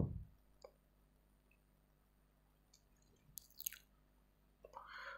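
Near silence: room tone, broken by a soft low thump at the start and a few faint, brief clicks about three and a half seconds in.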